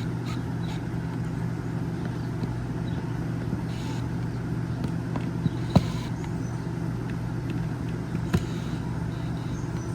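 Steady low mechanical hum, like a motor or engine running, with a few sharp clicks in the second half.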